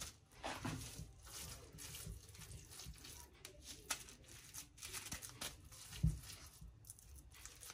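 Cling film crinkling and rustling as hands handle a film-lined patty mould and press minced chicken into it, with a soft low thump about six seconds in.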